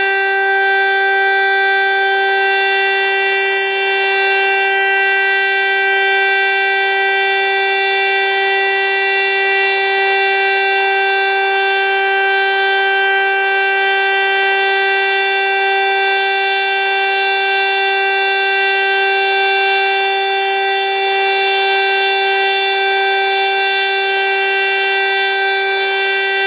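Civil defence siren sounding the all-clear: one long, loud, steady tone that holds its pitch throughout.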